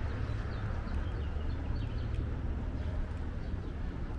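Birds chirping: many short, high, falling chirps, over a steady low rumble.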